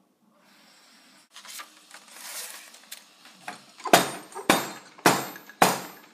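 Sharp knocks on a homemade hand-crank coffee grinder as a hand taps at its top: four evenly spaced knocks, about two a second, each with a short ring, starting about four seconds in, after softer rustling and scraping.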